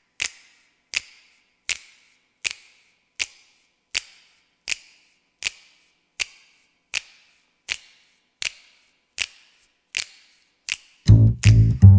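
Crisp finger snaps in an even beat, about 80 a minute, keeping the song's tempo; near the end a jazz band with plucked double bass comes in loudly.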